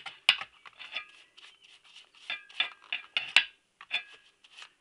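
A stiff brush scrubbing a metal oil filter screen in a pan of petrol: quick irregular scrapes and scratches, with light metallic clicks as the screen knocks against the pan.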